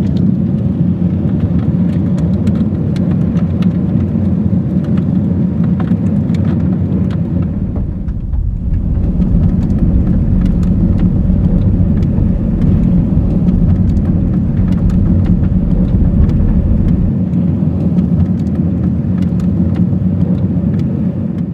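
Car driving on a gravel road, heard inside the cabin: a steady low tyre and road rumble with small stones clicking against the underside. The rumble dips briefly about eight seconds in.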